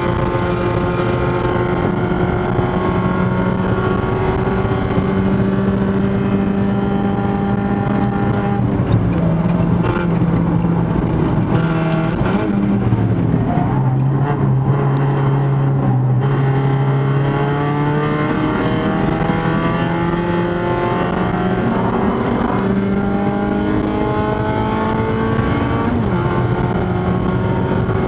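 Spec Miata race car's four-cylinder engine heard from inside the cabin under racing load. Its note climbs in long steady runs broken by short drops in pitch, falls low for a few seconds around the middle, then climbs again in steps.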